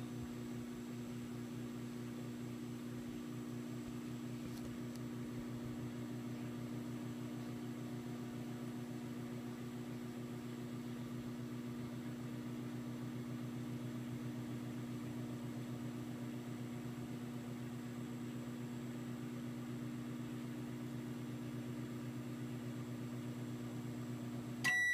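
Microwave oven running, a steady low hum heating a slice of pizza; right at the end the hum cuts off and the finish beep starts.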